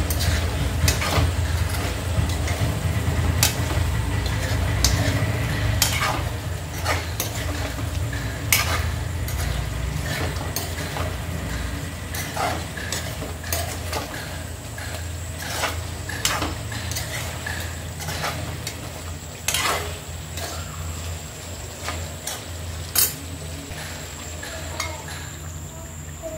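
Steel spoon scraping and clinking irregularly against an aluminium kadai as chicken pieces in gravy are stirred, over a steady low hum.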